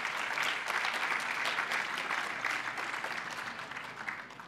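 Audience applauding for an award winner, a steady patter of many hands clapping that dies away near the end.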